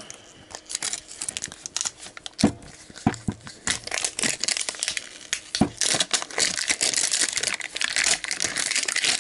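Plastic wrap crinkling and crackling as it is peeled by hand off an L.O.L. Surprise Under Wraps toy capsule. It starts as scattered crackles and becomes a dense, continuous crinkle from about halfway, with a few soft knocks from handling the capsule.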